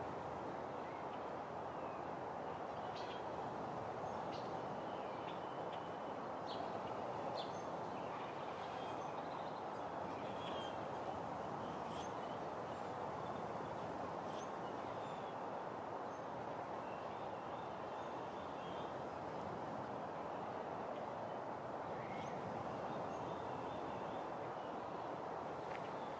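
Faint, scattered chirps and short high calls of small birds over a steady outdoor background noise.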